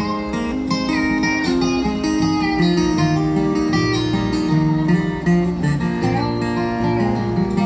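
Live acoustic guitar strumming chords, with a lap-played resonator guitar adding slide lead lines that glide between notes: the instrumental intro of a country song.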